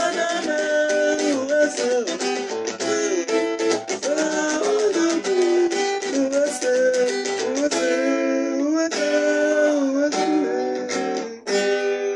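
A man singing while strumming a steel-string acoustic guitar, the voice gliding between held notes over steady strums.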